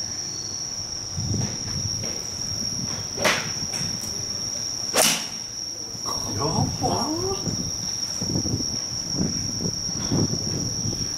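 An iron strikes a golf ball off a driving-range mat with one sharp crack about five seconds in, after a fainter click a second and a half earlier, over a steady high chirring of crickets.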